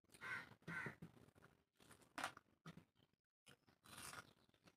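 Quiet eating sounds of rice eaten by hand: wet mouth clicks, smacks and chewing. A crow caws twice near the start.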